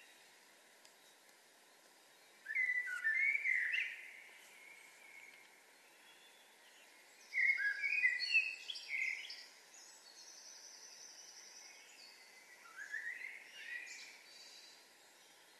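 Dawn birdsong: a songbird sings three short phrases of sliding notes about five seconds apart, and a thinner, higher song overlaps the second phrase, over a steady faint background hush.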